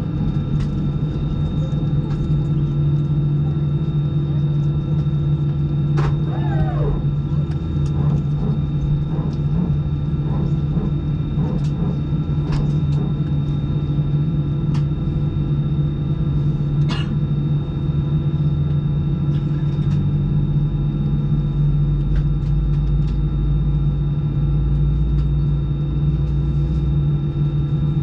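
Steady low cabin drone inside an Airbus A320-214 on the ground during pushback, with a few faint clicks and a short falling squeak about six seconds in.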